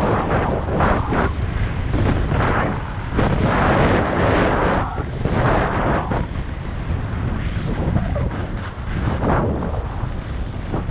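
Wind buffeting a helmet camera's microphone as the skier runs fast down the slope, a loud rushing noise that swells and dips in gusts.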